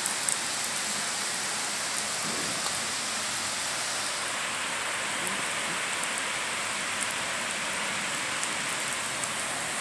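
Steady rain falling on a paved parking lot and puddles: a continuous even hiss with scattered drop ticks, turning slightly duller about four seconds in.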